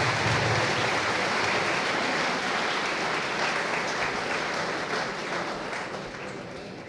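Audience applauding, the clapping dying away gradually over the last couple of seconds.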